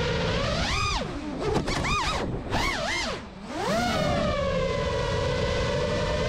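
FPV quadcopter's brushless motors and propellers whining, heard through the onboard GoPro. The whine holds a steady pitch, then swoops down and up several times between about one and four seconds in as the throttle is chopped and punched, and settles back to a steady whine.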